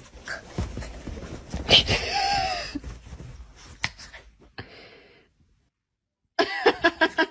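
A hand slapping and patting a small long-haired terrier's rump on bedding: rustling and pats, with the dog's breathy sounds and a short falling whine about two seconds in. After a brief hush, a short pulsing pitched sound comes near the end.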